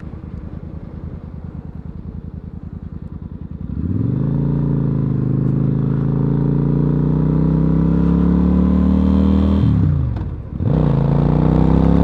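Suzuki Marauder motorcycle engine idling with a low, even putter, then pulling away about four seconds in, its pitch climbing as it accelerates. Near ten seconds the revs drop briefly for a gear change and then rise again.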